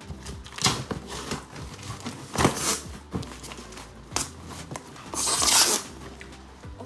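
Packaging being handled: rustling and crinkling, with three louder bursts, the last and longest about five seconds in.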